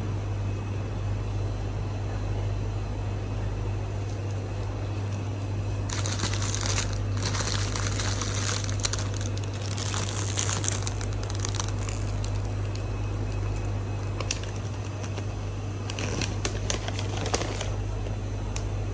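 Plastic instant-noodle packets crinkling as they are picked up and handled, starting about six seconds in and again briefly near the end, over a steady low hum.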